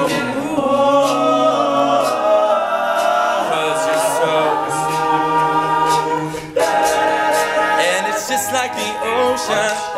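All-male a cappella group singing in close harmony, covering the song's instrumental break with wordless backing vocals and short percussive clicks on top. The sound drops out briefly about six and a half seconds in and comes straight back.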